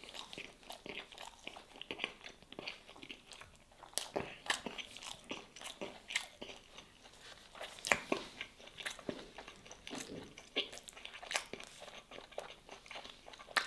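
Close-up sounds of a person chewing and biting a baked chicken-stuffed pastry with curry sauce: a run of short, sharp, irregular mouth clicks and crunches.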